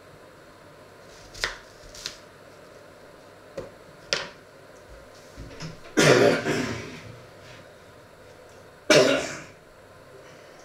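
A person clears their throat loudly twice, about six and nine seconds in. Before that come a few light knocks of things being set down on a wooden cutting board.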